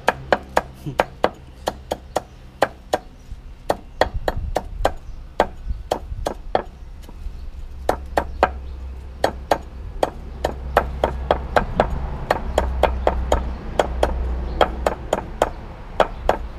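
Knife or cleaver chopping rapidly on a wooden cutting board in steady strokes, about four a second, as when mincing beef for Isan koi or larb.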